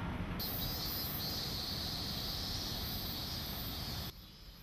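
Cicadas buzzing in a steady high chorus over a low outdoor rumble; it starts just after the beginning and cuts off abruptly about four seconds in.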